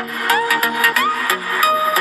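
Background music with a steady beat of about three beats a second and pitched notes, some sliding upward.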